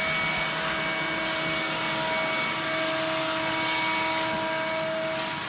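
Shop vac running steadily, a constant whine over the rush of air, as it sucks up dog and cat hair from the floor.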